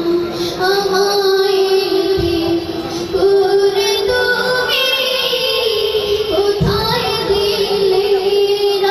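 A boy singing a Bengali gazal into a handheld microphone, holding long notes that glide slowly up and down in pitch.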